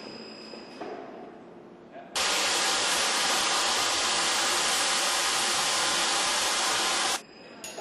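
Loud, steady hiss of compressed air from air casters floating a heavy steel platform while it is pushed across the floor; it starts suddenly about two seconds in and cuts off about seven seconds in.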